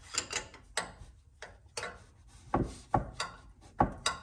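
Irregular metal clicks and knocks from a 17 mm wrench tightening the nut behind the change-gear train of a Grizzly G0602 metal lathe, as the gear quadrant is set in position. The sharpest knocks come in the second half.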